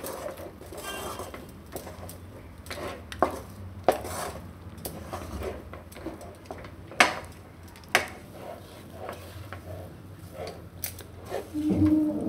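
Spatula scraping and knocking against a pan while stirring a thick cashew paste in sugar syrup, with several sharper knocks spread through. The paste is being cooked down until it thickens.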